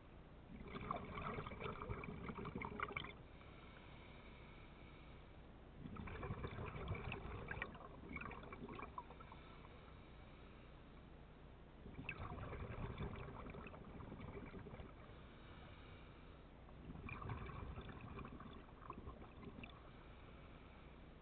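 Scuba regulator breathing underwater: four bursts of exhaled bubbles, one every five to six seconds, with quieter stretches between.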